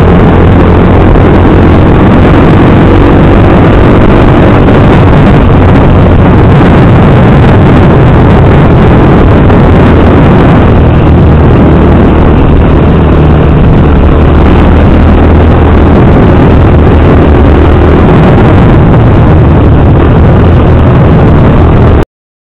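Motorcycle engine running under heavy wind rush on a riding camera's microphone, loud and constant, with the engine note rising and falling through the bends. The sound cuts off abruptly near the end.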